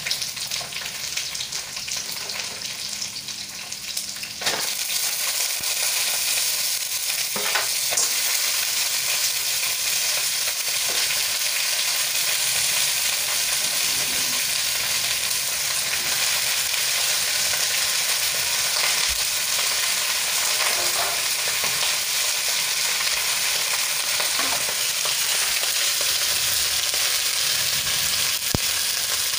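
Shrimp and other seafood sizzling in hot oil in a wok. The sizzle gets louder about four and a half seconds in, then stays steady.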